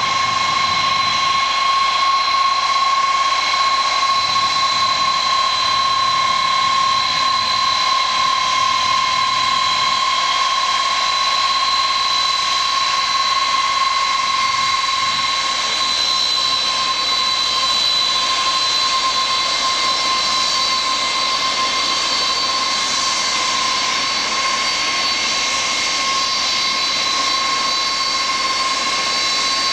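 Air France Boeing 747-300's turbofan engines running at low power as the jet moves along the ground: a steady, high-pitched whine over an even rush of jet noise.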